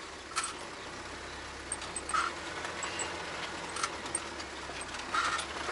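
UAZ off-road vehicle's engine idling with a steady low hum, heard from inside the vehicle, with a few faint short knocks and clicks.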